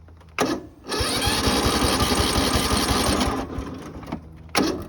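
Craftsman riding lawn mower's engine being cranked by its starter: a short burst, then about two and a half seconds of fast, even cranking, then another short burst near the end, without the engine settling into a run. It needs a little choke to start.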